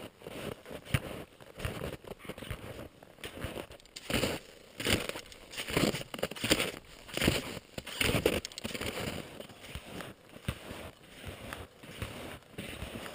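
Touring skis fitted with climbing skins sliding and crunching over snow in a rhythmic uphill stride, about one step a second.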